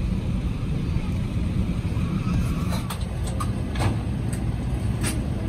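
Airbus A380 cabin noise while taxiing after landing: a steady low rumble from the engines and rolling gear, with a few light clicks in the second half.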